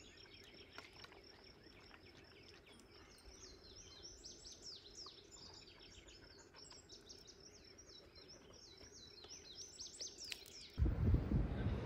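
Small birds chirping repeatedly over a faint, steady high-pitched tone in the background. Near the end it is cut off by a sudden, much louder rush of wind noise.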